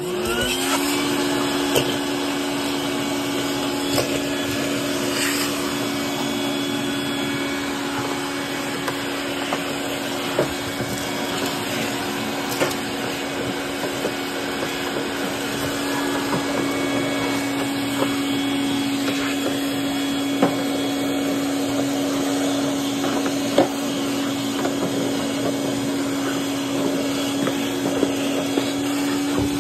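Vacuum cleaner switched on, its motor spinning up with a short rising whine and then running at a steady pitch. Scattered clicks and knocks come through as the nozzle works in a clothes dryer's lint opening.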